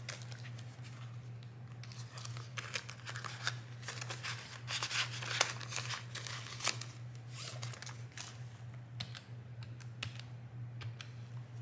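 Crinkling and rustling of the clear plastic zipper pockets of a cash-envelope binder and of paper banknotes as the pages are turned and handled, with irregular small clicks and taps. A steady low hum runs underneath.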